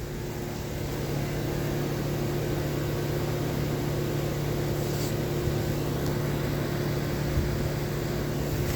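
Carrier Comfort 14 heat pump outdoor unit running in defrost mode: a steady low compressor hum under an even hiss.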